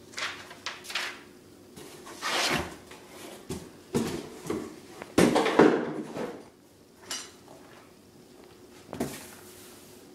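Packaging being handled during an unboxing: paper and cardboard rustling and knocking in several irregular bursts, the loudest a few seconds in.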